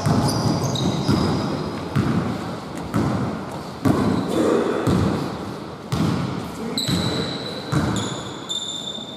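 Basketball dribbled on a wooden gym floor, about one bounce a second, each thud echoing in the hall. Short high sneaker squeaks come in over the last couple of seconds.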